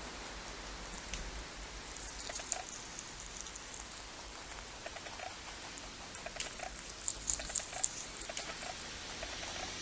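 Lop-eared rabbit chewing leafy greens: quick, soft crunching clicks over a steady hiss, busiest about two seconds in and again around seven to eight seconds.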